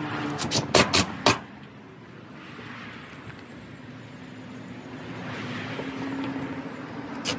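Cordless drill driving screws into tin roofing sheets. There is a steady motor whir, with a few sharp metallic knocks about a second in and again at the end.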